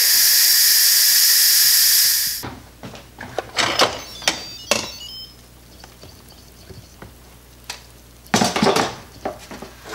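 Instant Pot pressure cooker venting steam through its release valve: a loud, steady hiss that cuts off after about two and a half seconds, once the pressure is released. Then come clicks and knocks as the metal-and-plastic lid is turned, unlocked and lifted off, with a short clatter near the end.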